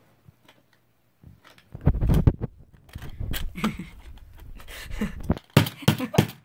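Handling noise: about four seconds of rough scraping and rustling, then a quick series of sharp knocks near the end.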